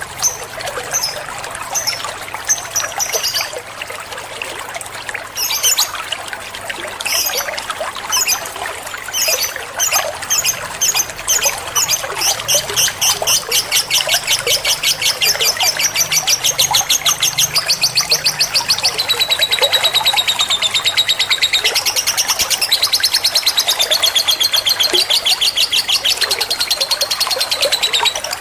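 Lovebird calling: scattered sharp, high chirps at first, then from about twelve seconds in a long, rapid chattering trill of repeated high notes that keeps going, stepping up and down in pitch.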